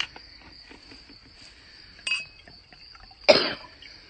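Crickets trilling steadily. About two seconds in, a wine glass gives a brief, light clink as it is handled with the bottle. A single loud cough comes near the end.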